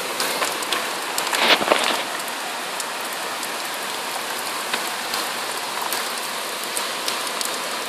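Heavy tropical-storm rain pouring down: a steady hiss dotted with many sharp ticks of drops hitting close by, a little louder in the first two seconds.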